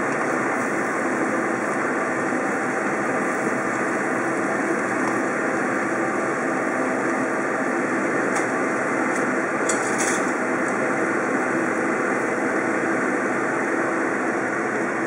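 Steady rushing noise of a stir-fry cooking in a wok on the stove, with a few light scrapes of a wooden spatula around eight to ten seconds in.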